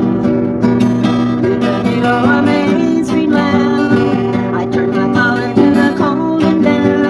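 Acoustic guitar music, strummed steadily.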